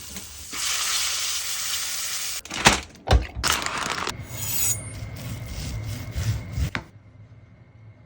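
Kitchen cooking sounds: a pan sizzling for about two seconds, then a few sharp knocks and scraping of a wooden utensil against cookware.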